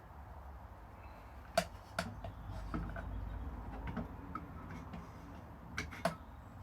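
A handful of light, sharp clicks and knocks, wood and tool parts being handled and set in place at a woodworking planer, over a low steady hum; the machine is not running.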